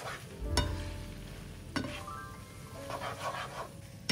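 Background music with steady held notes over spaghetti being tossed in a nonstick frying pan: a few sharp clicks of the utensil against the pan, a dull thump about half a second in, and soft scraping and sizzling around three seconds in.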